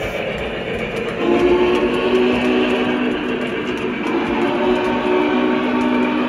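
An O-gauge model steam locomotive's onboard sound system blows a long chime steam whistle of several notes at once, starting about a second in, over the steady rumble of the train rolling along the track.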